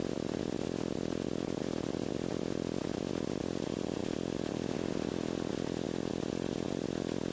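Flex-wing microlight trike's engine idling on the ground with its pusher propeller turning: a steady, even drone.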